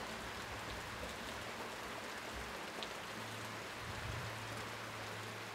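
Heavy rain falling steadily, an even hiss of rain on the ground and vegetation.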